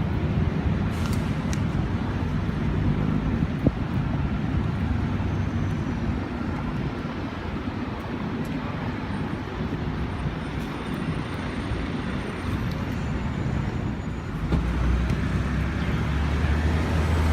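Busy city street traffic noise, a steady rush of passing vehicles. About three-quarters of the way through, a louder low steady hum comes in and holds.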